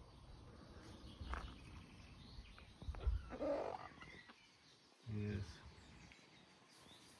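Chickens making a few soft, short clucking calls, about three and five seconds in.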